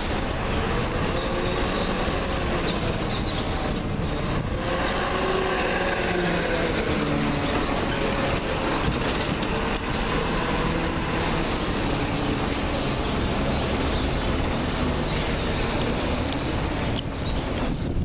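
Diesel engines of garbage trucks running as they drive past, the engine pitch rising and falling as they pull away.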